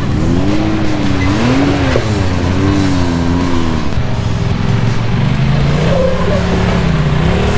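Side-by-side UTV engine revving up and down repeatedly while crawling over rock, the pitch rising and falling about once a second and then settling steadier, with music mixed in.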